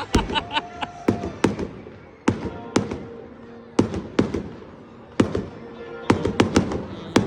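Aerial fireworks shells bursting: a dozen or so sharp bangs at uneven intervals, some in quick pairs, with a quick run of crackling right at the start. Music plays faintly underneath.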